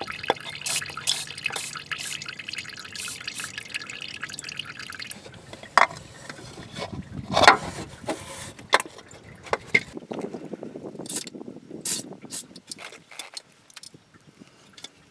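Engine coolant draining from a 1998 Chevrolet Cavalier's 2.4 twin-cam engine into a small bucket, a steady trickle that stops about five seconds in. After that come scattered drips and short sharp sounds.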